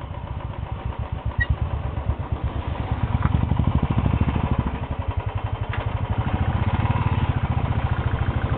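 Motorcycle engine running, its low firing pulses growing louder about three seconds in.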